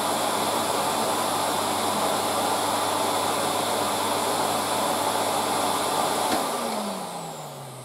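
A 1987 Electrolux Z2020 cylinder vacuum cleaner's motor running steadily and smoothly on its first switch-on after years sealed in its box. About six seconds in it is switched off with a click, and the motor winds down with a falling pitch.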